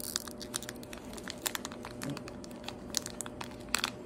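Light, irregular clicks and taps of small plastic pieces being handled, several a second, over a faint steady hum.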